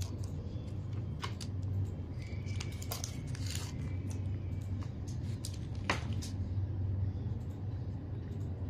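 Handling noise: a few sharp clicks and light crinkles as hands move the clip leads and the plastic-wrapped head-unit screen, over a steady low hum.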